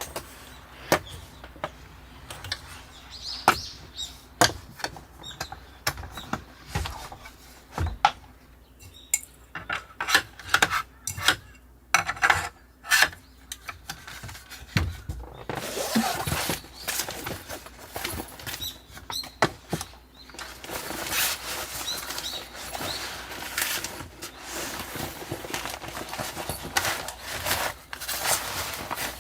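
Wood fire crackling, with irregular sharp pops that thicken into a dense crackle about halfway through.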